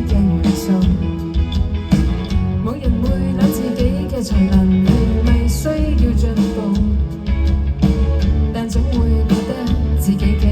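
Live band playing a song, with a regular drum beat, a heavy bass line and guitar.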